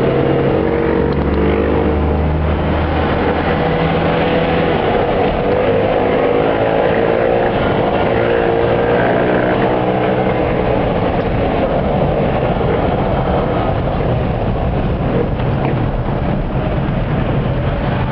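Engine and road noise of a moving car heard from inside its cabin, steady, with the engine's pitch slowly shifting as it drives in traffic.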